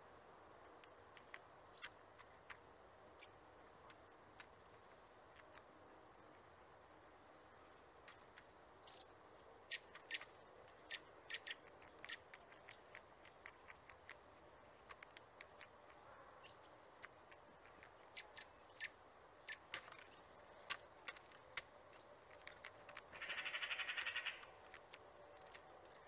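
Faint sharp clicks and taps of a Eurasian jay pecking through seeds and nuts in a wicker feeder basket, with a few thin high bird chirps. Near the end comes a fast rattle lasting about a second and a half.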